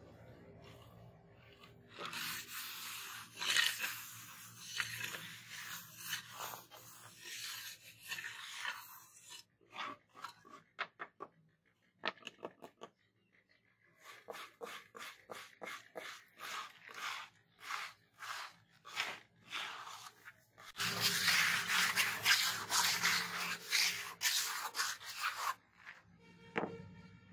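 Steel trowel scraping and rubbing over a wet cement slab in a tile mould, smoothing the surface. Long stretches of steady scraping near the start and near the end, with a run of short separate strokes in between, about three a second.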